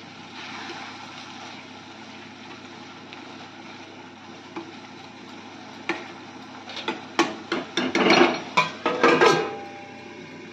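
Ladle scraping in a steel kadhai of paneer gravy over a steady faint hiss, then, from about six seconds in, a run of sharp metal knocks and clatter as the ladle and a steel lid strike the kadhai while it is covered.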